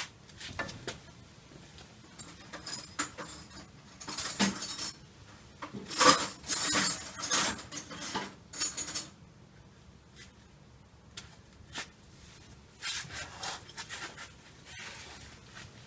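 Hand tools and small metal parts clinking and scraping during hand work on the transmission shifter cable fittings, in short irregular bursts that are busiest between about four and nine seconds in.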